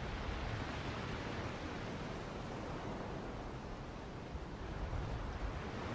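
Steady, soft rushing noise of a nature-ambience background bed, without tones or beats.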